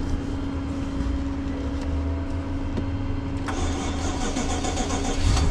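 A BMW's engine cranking on a jump start from a weak battery, reading only 10.5 volts, and struggling before it catches and runs after a few seconds.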